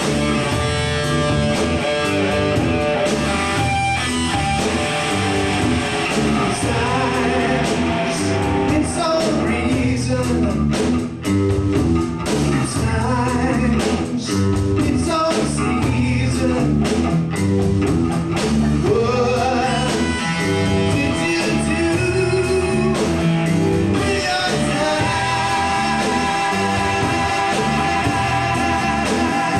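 A live rock band playing: electric guitar, bass guitar and drum kit, with a voice singing over them.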